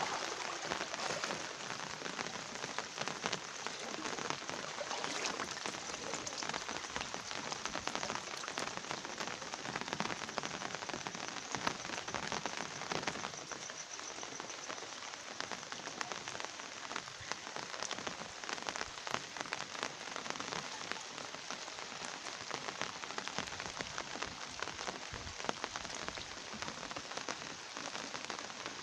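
Steady rain falling: an even hiss made of many small drop ticks, keeping the same level throughout.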